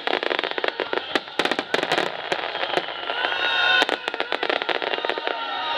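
Starmine fireworks volley: shells bursting in rapid, dense succession with crackling between the reports, and a brief pitched tone about three seconds in.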